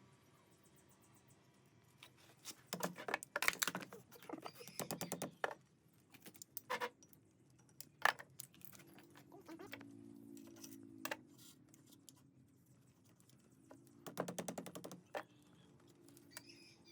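Metal clinks and rattles of small parts or tools being handled: two rapid clusters, one about two to five seconds in and one near the end, with a few single sharp clicks between them.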